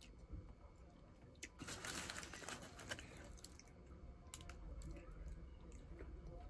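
Quiet eating sounds from someone chewing a sandwich: soft scattered clicks, with a crackly rustle lasting about a second and a half that starts about a second and a half in.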